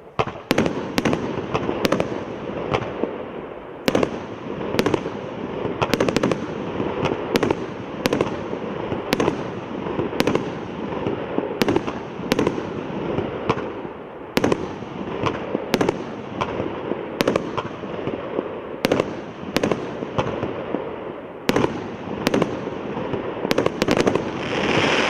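A 25-shot, 1-inch consumer firework cake firing its shots one after another, a sharp bang about every half second to a second. Between the shots runs a continuous crackle from the brocade and crackling stars, swelling near the end as the cake finishes.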